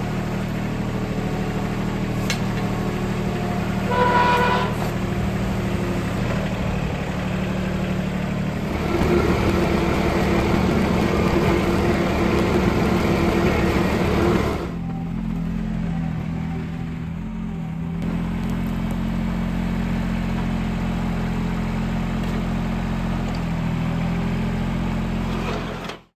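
John Deere 4100 compact tractor's three-cylinder diesel engine running steadily as the tractor is driven. There is a brief higher tone about four seconds in, and a louder stretch of about five seconds in the middle. The sound cuts off suddenly at the end.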